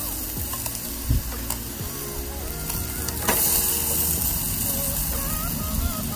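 Chicken breasts sizzling over hot charcoal on a small grill, with a couple of sharp clicks, about a second in and again about three seconds in, as tongs lift the pieces off.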